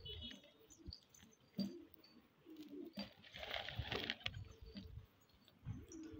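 Domestic pigeons cooing in short, low, scattered notes, with a burst of wing flapping about three to four seconds in.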